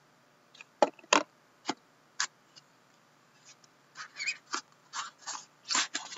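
Hands handling an Upper Deck The Cup hockey card box, its lid and inner box: a few sharp clicks and taps in the first couple of seconds, then a cluster of scraping and rustling as the contents are worked out near the end.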